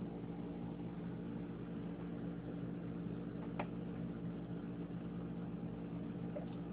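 A steady low machine hum made of several even tones, with one faint click about three and a half seconds in.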